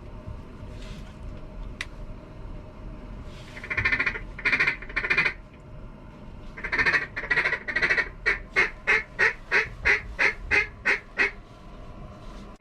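Mallard hen quacking: three loud quacks about four seconds in and two more near the middle, then a quick run of about a dozen short quacks, roughly three a second, that stops about a second before the end.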